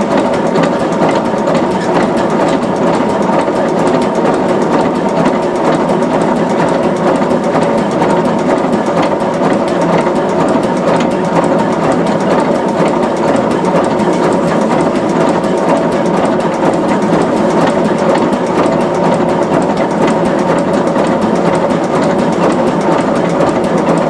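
Aveling Barford DY road roller's diesel engine running steadily.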